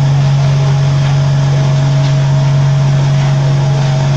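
Paver-block vibrator table running with a loud, steady hum, its perforated steel top shaking concrete-filled plastic moulds to settle and compact the wet concrete.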